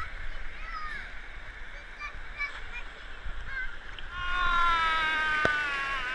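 A child's long, high yell, sliding slightly down in pitch, about four seconds in, from a rider on a tube water slide, over a steady wash of pool water and short distant shrieks.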